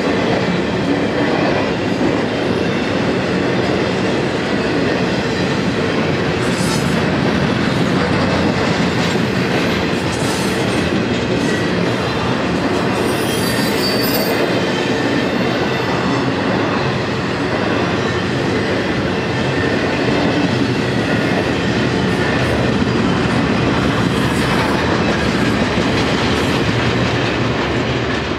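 Steady rumble of a BNSF intermodal freight train's trailer and container cars rolling past on the rails, steel wheels on track, with a brief high squeal of wheels about halfway through.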